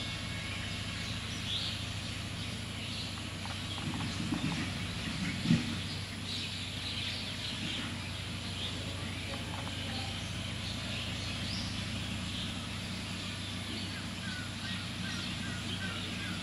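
Birds chirping over a steady low hum, with a single sharp thump about five and a half seconds in.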